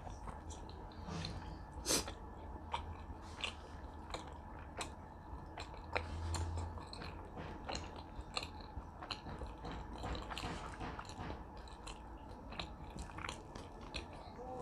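Close-up mouth sounds of a person eating: chewing and biting with many small wet clicks and smacks, and one sharper crunch about two seconds in.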